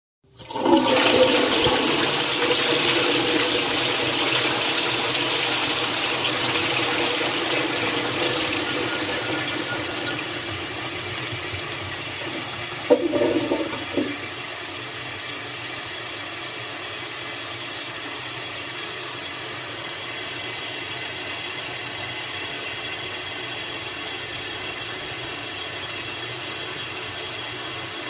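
A toilet flushing. A sudden rush of water comes in and slowly dies away, with a brief gurgle about thirteen seconds in, then a steady, quieter hiss of the tank refilling.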